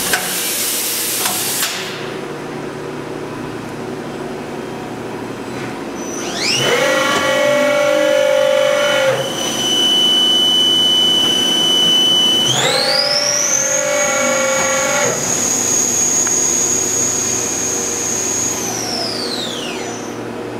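A machining center running a program: a loud hiss cuts off within the first two seconds. From about six seconds in the spindle's whine rises in pitch and holds, steps up to a higher pitch about halfway through, holds again, then falls away and stops near the end. A lower buzzing chord sounds during each speed-up.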